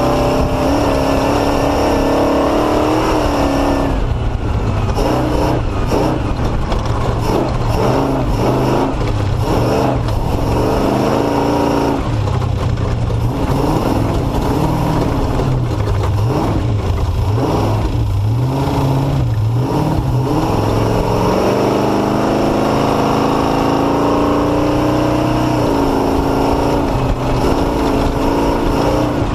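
Off-road race vehicle's engine running under load, its pitch rising and falling again and again as the throttle is worked over slow, rough ground. It is steadier at the start and near the end.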